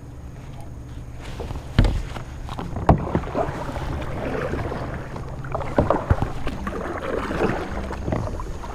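A kayak being paddled: paddle strokes splashing through the water, with a few sharp knocks, the loudest about two and three seconds in.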